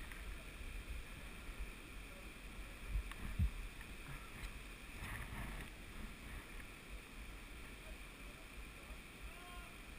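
Faint outdoor ambience on a rifle-mounted action camera: a steady low wind rumble on the microphone, with two soft handling thumps about three seconds in.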